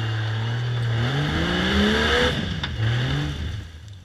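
Rock buggy's engine revving hard under load as it climbs over rocks. The pitch rises steadily for about two seconds, drops, rises again briefly, then falls away near the end.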